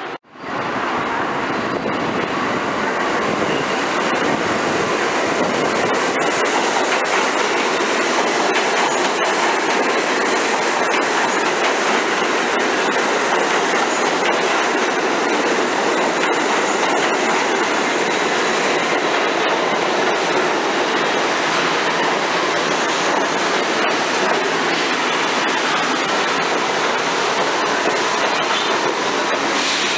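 New York City subway train running steadily through an underground station, a continuous loud noise with faint clicks from the wheels on the rails.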